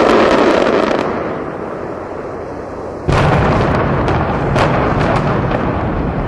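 Pyrotechnic fireworks going off from a hotel tower's roof in the show before its implosion. A sudden loud volley at the start fades over about two seconds, and a second volley about three seconds in brings a run of sharp cracks over a low rumble that slowly dies away.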